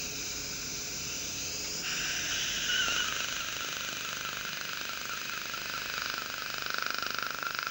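Er:YAG dental laser with a sapphire tip working on a tooth with its water spray: a steady hiss with a fast run of pulses, a higher-pitched band joining about two seconds in.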